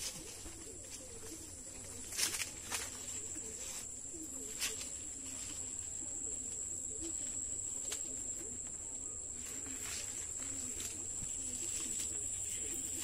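Rural outdoor background with a steady high-pitched insect drone and faint scattered chirps. A few sharp clicks come in the first five seconds.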